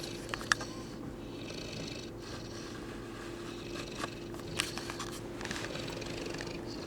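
St. Bernard puppy snoring in its sleep, one snoring breath roughly every two seconds. A few sharp clicks cut in, the loudest about half a second in and two more around four seconds.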